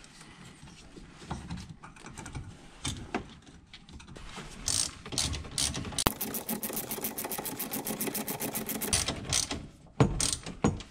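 Ratchet wrench with a 10 mm socket clicking as a bolt is run back in: scattered handling clicks, then about halfway through a fast, even run of about ten clicks a second for some three seconds. There are a couple of heavier knocks near the end.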